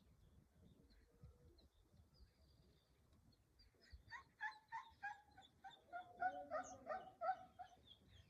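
Faint outdoor quiet for a few seconds, then a run of short repeated animal calls, about three a second, starting about halfway through and stopping near the end.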